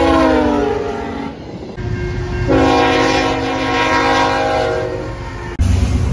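A VIA Rail P42 passenger locomotive's horn chord sounding as it passes, dropping in pitch and ending about a second in. After a cut, a CN freight locomotive's horn blows one long steady chord for about three seconds over the train's rumble. Near the end a sudden cut brings a louder low rumble.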